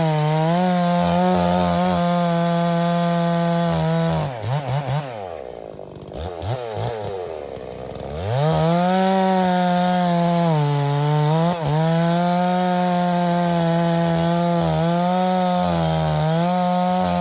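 A new Holzfforma G660, a Stihl MS660-clone two-stroke chainsaw with a 28-inch bar, being broken in cutting red oak at high revs, its pitch sagging as the chain loads in the wood. About four seconds in it drops to idle with a few throttle blips. It revs back up near eight seconds and cuts again, dipping under load twice more.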